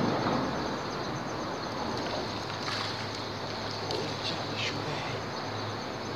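Steady hiss and rumble of road traffic on the highway bridge overhead, with a low hum, and a few short high squeaks between about two and a half and five seconds in.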